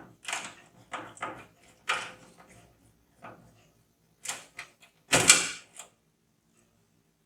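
A run of short clicks, knocks and rattles from parts and hardware being handled, the loudest knock about five seconds in, followed by a quieter stretch.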